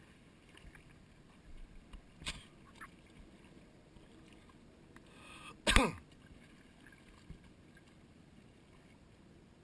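Faint, steady noise of calm water and light wind against the rocks. There is a click about two seconds in, and a little before the middle one brief loud sound that drops quickly in pitch.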